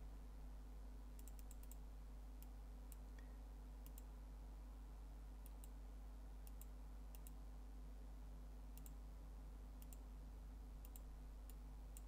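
Faint computer mouse clicks, about a dozen short ticks at irregular intervals, often in twos or threes, over a low steady hum.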